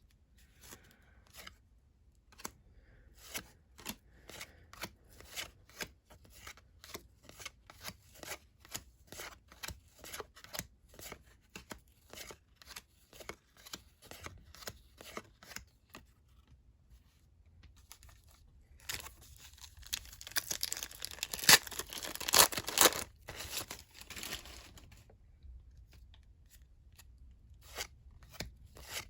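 Trading cards being flipped through one by one: short dry snaps of card on card, about two a second. About 19 seconds in comes a louder few seconds of crinkling and tearing as a card pack's wrapper is ripped open. Then the card flicks start again.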